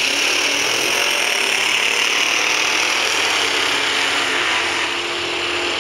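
Two drag cars' engines running at full throttle as they race down the strip, a loud steady rasp that eases slightly near the end as the cars pull away.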